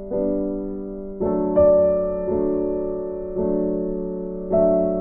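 Background music: slow, soft piano chords, a new chord struck about every second and fading away.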